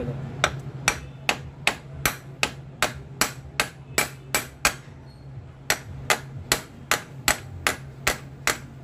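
Hammer blows setting the rivets that hold the bush housing on a cooler motor's steel end plate: even, sharp strikes about two and a half a second, with a pause of about a second halfway through.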